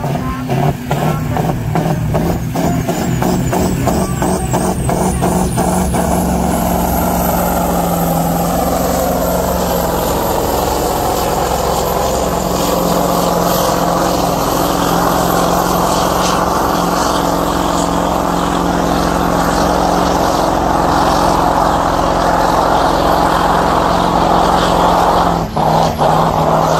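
A pulling truck's diesel engine runs at full throttle as it hauls a weight-transfer sled, with a high whistle that climbs over the first several seconds and then holds. About 25 seconds in, the engine suddenly drops back at the end of the pull.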